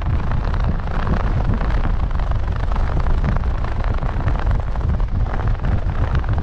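Strong wind buffeting the microphone: a loud, steady low rumble with a rushing hiss above it.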